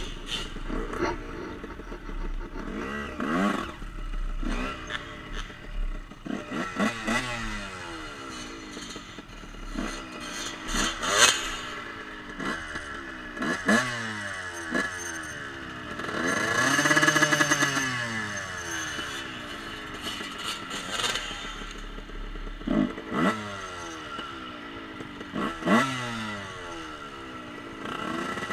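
Off-road motorcycle engine revving and changing gear as it rides: repeated rising revs, each a second or two long, with a longer climb and fall in pitch about 16 to 18 seconds in.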